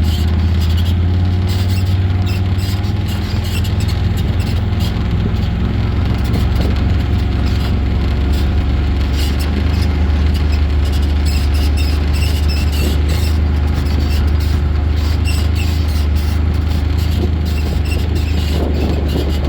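Can-Am off-road vehicle's engine running steadily at a low, even drone while riding. Short high squeaks come and go on top of it.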